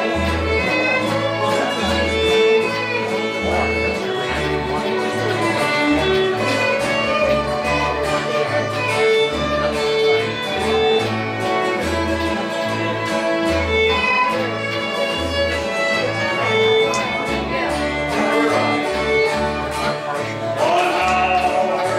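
Acoustic string band playing an instrumental break: a fiddle carries the melody over a strummed acoustic guitar and an upright bass thumping steadily on the beat.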